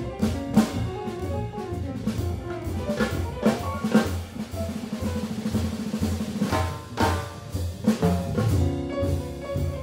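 Jazz drum kit played busily, snare and tom strokes with sharp accented cymbal hits and a fast roll about five seconds in, over walking double bass and piano.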